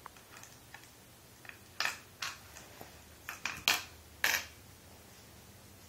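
Glass Mancala stones dropped one at a time into the pits of a wooden board: a string of about ten irregular clicks and clinks, the loudest near the middle and toward the end.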